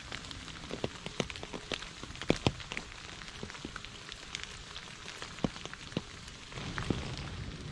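Light rain falling into a shallow puddle and onto wet leaves: single drops plink clearly over a steady patter. The rain grows a little heavier and denser near the end.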